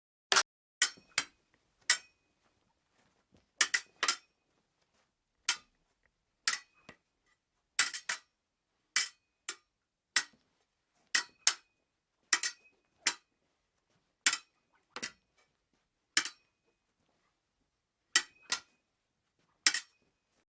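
Fencing blades clashing: some two dozen sharp metallic clinks at uneven intervals, some in quick pairs, several leaving a brief high ring.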